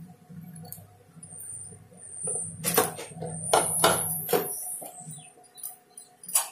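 Snake gourd pieces frying in oil in a pan, with a handful of sharp spattering pops in the middle over a steady low hum.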